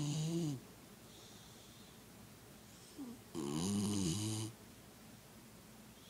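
Beagle snoring loudly in deep sleep: two long pitched snores about three seconds apart, the first ending about half a second in, the second lasting about a second, with faint breathing between.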